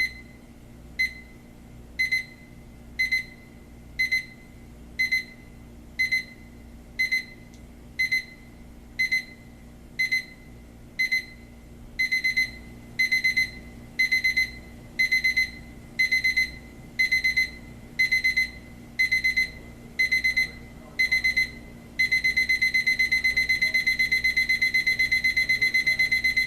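Westclox 70045 digital alarm clock's alarm going off: a high electronic beep once a second that steps up to short runs of rapid beeps each second about halfway through, then becomes continuous rapid beeping near the end, the usual escalating pattern of a wake-up alarm.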